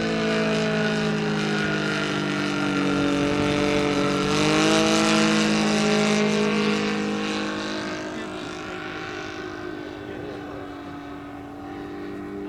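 Saito FG-90R3 three-cylinder radial four-stroke petrol engine of an RC biplane running in flight, its propeller note shifting slightly in pitch. It grows loudest midway as the plane passes, then fades as it flies off.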